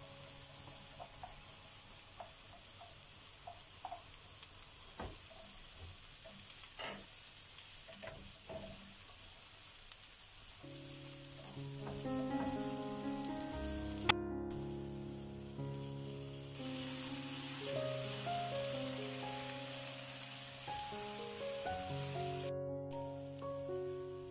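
Diced vegetables (carrots, bell peppers, courgettes and onion) sizzling in a nonstick frying pan as they are stirred with a spatula, with light scrapes and taps against the pan. Background music comes in about ten seconds in, and there is one sharp click a few seconds later.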